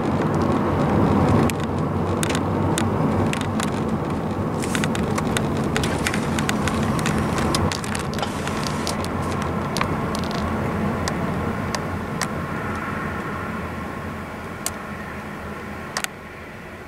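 Car cabin noise while driving: steady tyre and engine rumble with road hiss and scattered sharp clicks, easing off gradually in the second half as the car slows.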